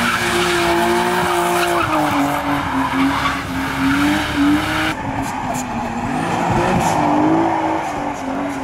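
BMW E36 engines held at high revs, the revs rising and falling, while the rear tyres spin and squeal through drifts and donuts. The sound changes abruptly about five seconds in as a second car takes over.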